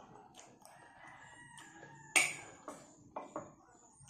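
A rooster crowing once in the background, a long drawn-out call that ends about halfway through, over sharp clinks of a spoon against a plate; the loudest clink comes just after the crow ends.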